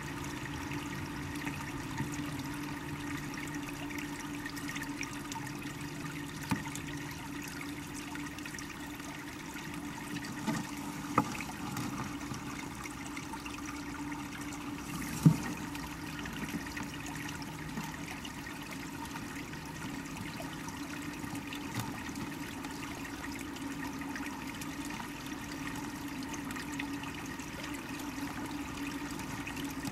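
Flowing creek water heard from a camera submerged in the stream: a steady rush of water, broken by a few short, sharp knocks, the loudest about halfway through.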